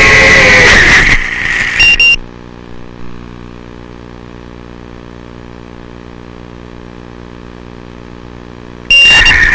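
Brushless motors and propellers of a 5-inch FPV racing quadcopter, a loud whine whose pitch shifts with throttle. They cut out about a second in, leaving only a faint low electrical buzz for about seven seconds, then spin up loud again near the end.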